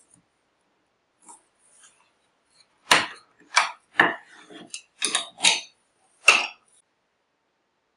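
Plastic side-release buckle and metal buckle mount of a wooden paracord jig clacking and knocking as a finished paracord collar is unclipped and lifted off, about six sharp clacks over three and a half seconds.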